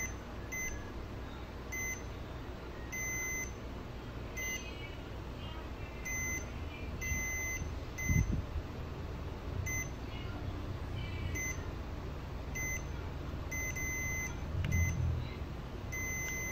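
Multimeter continuity buzzer beeping on and off about a dozen times, some beeps brief and some about half a second long, as the probe touches a point on a Samsung A05 mainboard. The beeps show a short on the line fed by the backlight IC. Two soft thumps come partway through.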